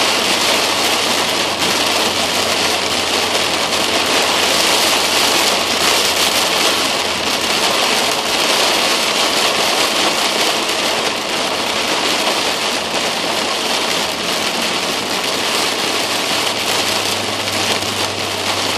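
Heavy rain pelting the car's roof and windshield, heard from inside the cabin as a loud, steady hiss, with a low steady hum underneath.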